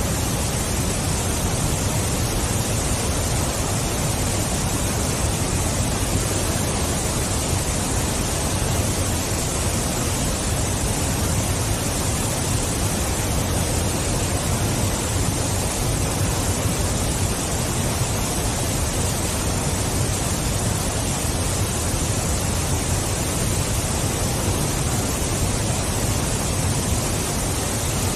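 Waterfall: a steady, unbroken rush of falling water with a deep low rumble under a bright hiss.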